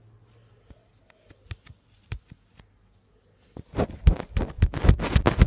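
Handling noise on an iPad mini's microphone: a few scattered taps, then from about three and a half seconds in a loud, dense, irregular run of knocks and rubbing as the tablet is grabbed and moved.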